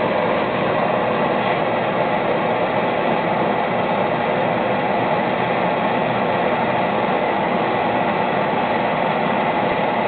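Gas torch flame burning with a steady rushing hiss, heating the knife bolsters and liners until they are hot enough to melt the solder.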